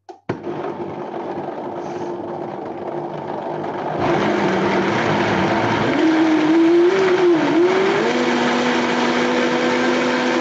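Electric blender running, puréeing a batch of the cooked cabbage brown-sauce mixture. It starts just after the beginning and gets louder about four seconds in. Its motor whine wavers in pitch, then settles at a higher steady pitch about eight seconds in.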